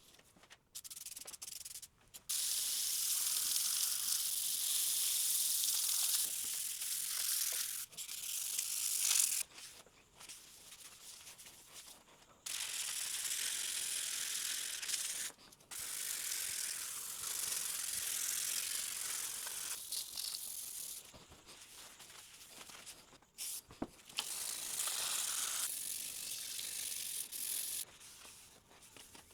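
400-grit wet/dry sandpaper scrubbed by hand over the WD-40-wetted cast iron table of a Ridgid JP06101 jointer, buffing off light surface rust. A hissing rub in several spells of a few seconds each, with short pauses between.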